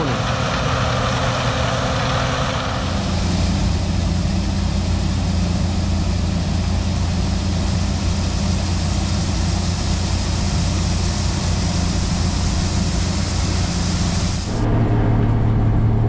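Case IH 2388 combine running steadily while harvesting corn: a constant engine hum under a dense hiss from the machine. The sound shifts abruptly about three seconds in, and near the end the hiss drops away, leaving a lower hum.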